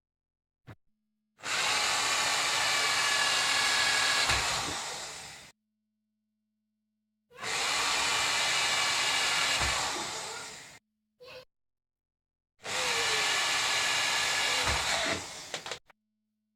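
Electric drill boring drainage holes in a PVC window frame profile. It runs in three bursts of a few seconds each, and each burst tapers off as the motor winds down.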